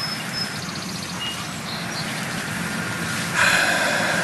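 Outdoor rural ambience with a steady low background and a few short, high bird chirps and trills, then a louder, steady hiss that comes in suddenly about three seconds in.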